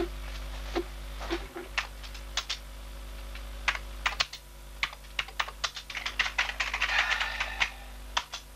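Typing on a beige PC keyboard: a few scattered key clicks at first, then a quick run of keystrokes through the middle that stops shortly before the end.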